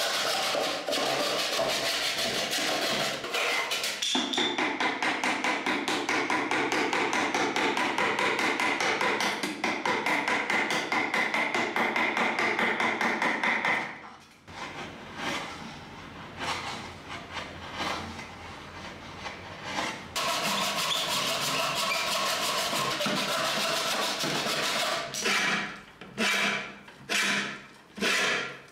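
Hand woodworking on pine: a handsaw cutting through a board with quick, even back-and-forth strokes for about the first half. It turns quieter halfway through with irregular scrapes and taps as a chisel pares the wood, then hand-plane strokes along a board, one every half-second or so near the end.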